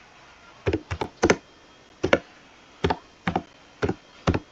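Computer keyboard keys being pressed one at a time, about nine separate key clicks at an uneven, slow typing pace.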